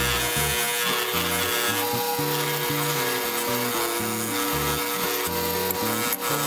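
Motor-driven wire wheel scrubbing rust off steel pliers: a steady abrasive hiss over a constant motor hum, with background music carrying a stepping bass line underneath.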